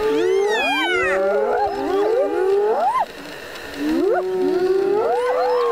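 Several spotted hyenas calling together: overlapping whoops that glide steeply up and fall away again, several at once, with a brief lull about three seconds in.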